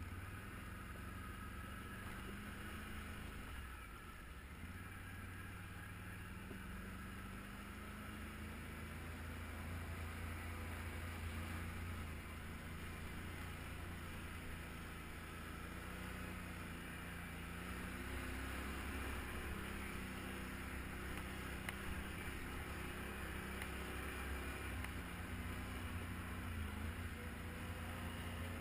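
Can-Am quad's V-twin engine running steadily at low riding speed, its pitch shifting as the throttle changes.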